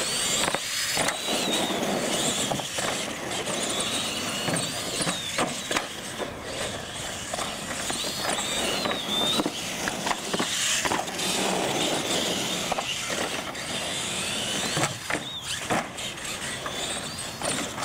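Radio-controlled monster trucks racing: their motors and drivetrains whine up and down in pitch under a rough rolling noise of tires on concrete, with scattered knocks as they go over the ramps and jumps.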